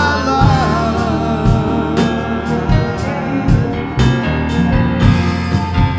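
Live gospel worship music: a singer holds the word "life" over a full band with steady drum beats.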